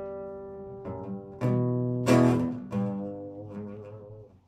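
Acoustic guitar chords strummed and left to ring out. Fresh strums come about one and a half and two seconds in, the second the loudest, and the sound fades away near the end.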